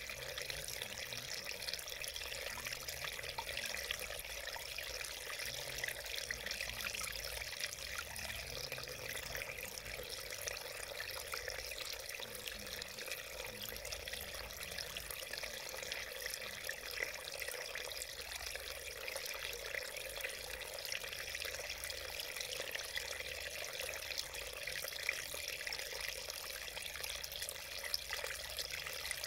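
A small mountain stream running and splashing over rocks: a steady, even rush of water.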